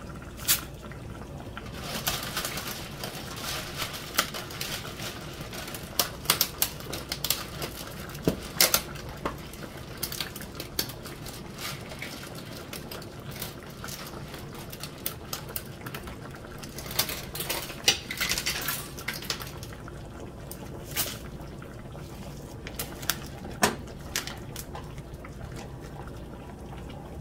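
Irregular clicks and light clatter as dry spaghetti is dropped into a pot of simmering tomato sauce and pushed in with a wooden spoon, over the soft bubbling of the sauce. The clicks come in two busy spells, a few seconds in and again past the middle.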